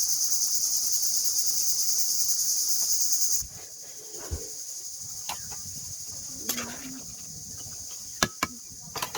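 Crickets chirping in a steady, fast pulsing trill that drops suddenly to a much fainter level about three seconds in. A few short sharp clicks come near the end.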